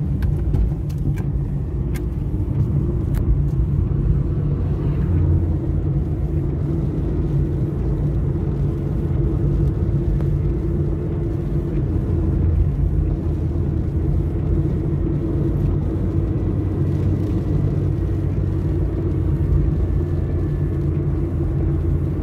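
Car interior noise while driving: the engine and tyres make a steady low rumble heard from inside the cabin. A few light clicks come in the first few seconds.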